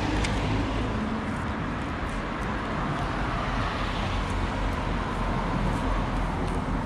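Steady motor-vehicle noise: a low hum under an even hiss, with no marked change.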